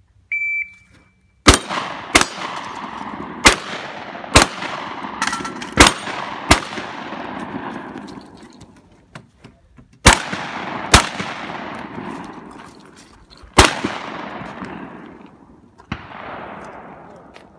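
A shot timer's start beep, then about ten shotgun shots fired in an irregular string, each followed by a long echo. The shots come in quick groups with a pause of several seconds in the middle. The last shot is fainter.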